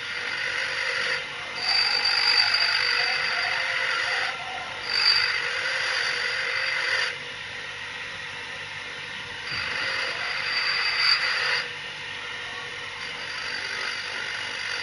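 Agate grinding machine running steadily with a thin high whine. Three times it gets louder and harsher for two or three seconds, the sound of the stone being pressed against the grinding wheel.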